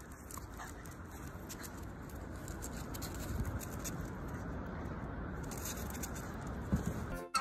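Light, irregular pattering and scuffing of a small dog's claws on paving stones as it runs, over a faint steady rumble of outdoor air noise.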